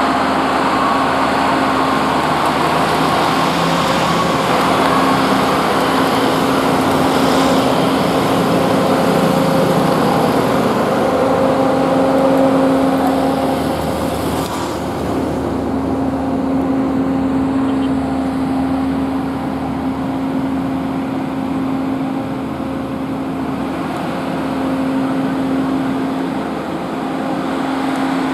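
Diesel engines of road-paving machines (asphalt finisher and tandem rollers) running with a steady hum, mixed with motorbike traffic passing close by. The higher hiss of the traffic thins out about halfway through.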